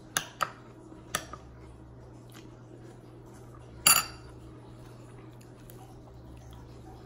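A metal fork clinking against a glass plate while eating: three light clinks in the first second or so, then a louder one about four seconds in.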